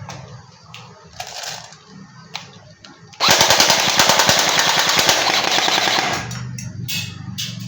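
Weihui SLR blaster converted to AEG firing one full-auto burst of about three seconds: a fast, even rattle of the electric gearbox cycling shot after shot. A few light handling clicks come before and after it.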